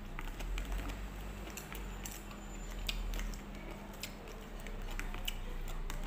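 Eating sounds: chewing, with small scattered clicks and scrapes of a spoon against a plastic bowl of green papaya salad, over a steady low hum.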